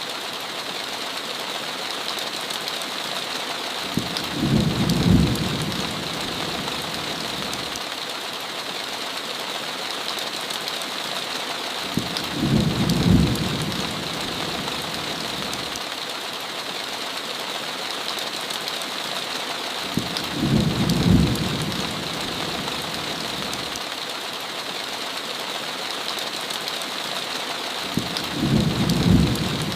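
Heavy rain pattering steadily on a window, with a low rumble of thunder swelling and fading four times, about every eight seconds, each lasting about two seconds.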